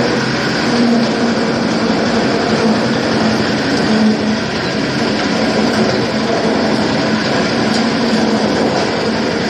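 Areca nut splitting machine running off its 12 HP diesel engine: a loud, steady mechanical din with an engine hum underneath.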